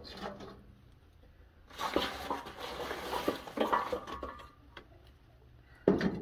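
Dry grass and brushwood tinder rustling and crackling as it is pushed by hand into the firebox of a sheet-metal stove, loudest for a couple of seconds in the middle. A single sharp knock near the end.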